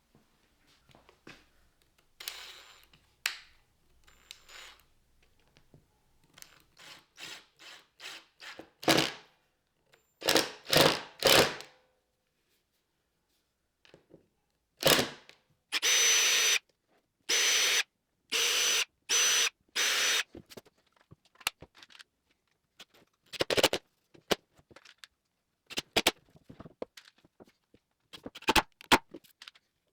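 Power drill running in four short bursts of under a second each, about halfway through, with a high whine, while drilling and screwing an MDF template down onto plywood. Scattered knocks and clicks of tools and wood being handled.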